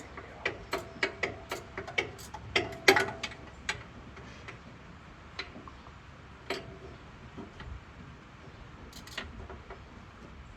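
Ratchet wrench clicking as it is worked on a tight alternator bolt: a run of about a dozen sharp metallic clicks, about four a second, over the first few seconds, then a few scattered clicks.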